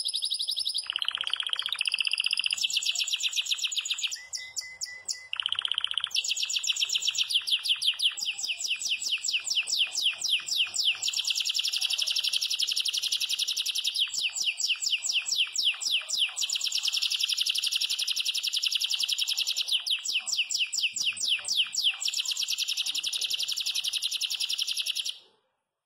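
Yellow Belgian canary, a campainha-type singer, in full song: a long run of fast, high trills and rolling phrases with hardly a pause. The song falters briefly about four seconds in, then carries on until it cuts off suddenly near the end.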